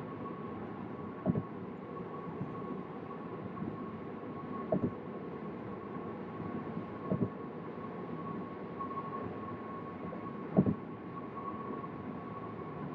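Road and tyre noise inside a Tesla Model 3 cruising at highway speed: a steady rushing sound with a faint steady high tone over it. A short dull thump comes every few seconds, four times in all.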